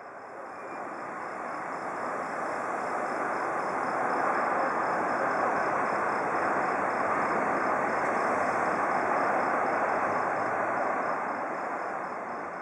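Steady rush of road traffic noise that swells in over the first few seconds and fades near the end, with a faint high whine above it.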